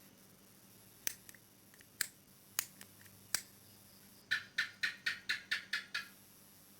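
Sharp clicks: four single clicks spaced under a second apart, then a quick run of about eight clicks at roughly four a second.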